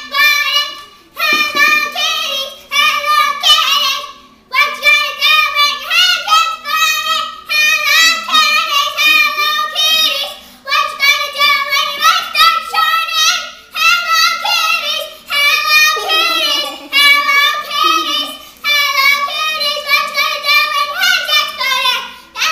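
A young girl singing loudly in a high voice, unaccompanied, in short phrases with a few brief breaks.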